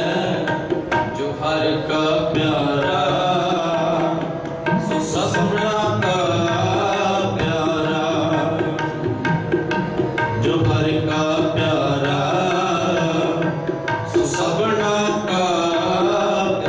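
Sikh shabad kirtan: harmoniums hold sustained chords while a tabla plays a steady rhythm under sung gurbani.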